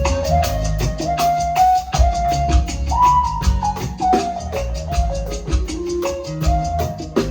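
Music: a drum kit keeping a quick, steady beat under a melody line of held notes that step up and down.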